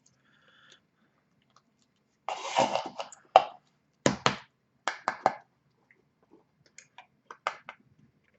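A cardboard trading card box and its packaging being handled and opened: a rustle of cardboard or plastic about two seconds in, then a run of sharp clicks and taps.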